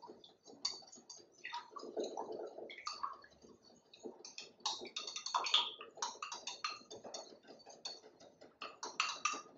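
A utensil stirring vinaigrette in a small bowl, with a quick, irregular run of light clicks and scrapes against the bowl.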